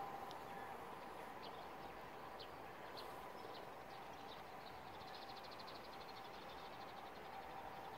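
Faint outdoor ambience with scattered short, high bird chirps through the first half, then a rapid high trill from about halfway on, over a faint steady hum.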